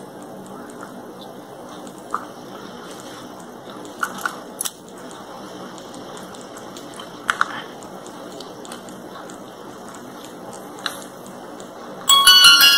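A few light plastic clicks as a Yi 4K action camera is handled and its battery and memory card door is pushed shut. Near the end the camera powers on, sounding a short electronic startup chime from its small built-in speaker, the loudest sound here.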